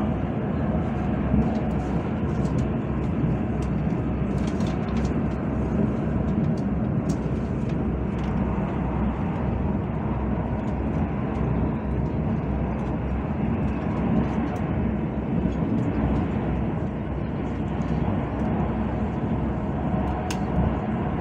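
KTM ETS electric train running at speed, heard from inside the carriage: a steady low rumble and rush of running noise that holds an even level throughout.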